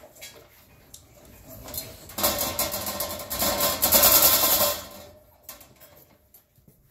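A metal feeding pan rattling and scraping on a wire crate floor for about two and a half seconds, starting about two seconds in, as puppies lick it clean and push it around.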